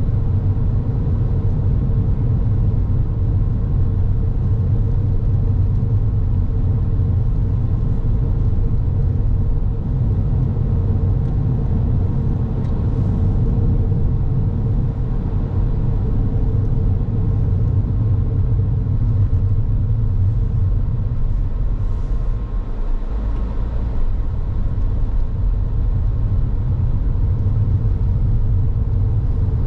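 A car driving along the road: a steady low rumble of tyres and engine with a faint even hum. It eases briefly about 23 seconds in.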